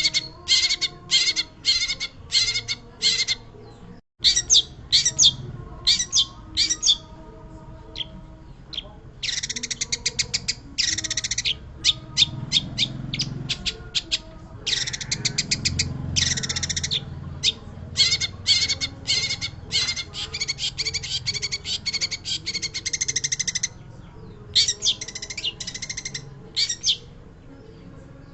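Long-tailed shrike singing hard: a run of harsh, scratchy phrases and fast chattering rattles in quick succession. There is a short lull about seven seconds in, and another near the end.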